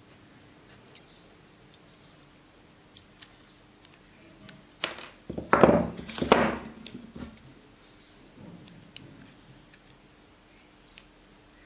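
Handling noise from a plastic syringe and small hand tools (wire cutters and pliers): scattered faint clicks, then a loud burst of clicking and scraping lasting about two seconds, around the middle.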